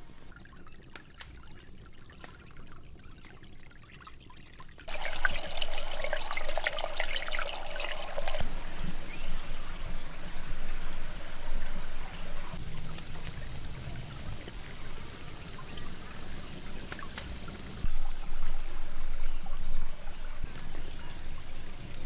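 Shallow forest creek trickling and splashing over rocks. It starts quieter with scattered light crackles and clicks, then the water grows much louder about five seconds in and shifts in strength a few times, cutting abruptly between takes.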